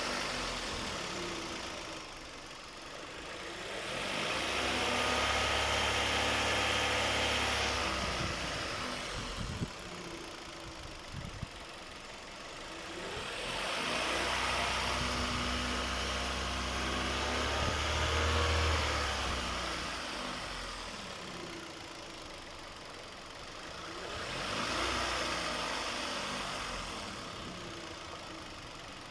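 Hyundai Creta engine revved up and let back down three times, with a thin whistle that rises and falls in pitch with the revs. The whistle comes from a belt-driven bearing and appeared after the alternator and air-conditioning compressor bearings were replaced.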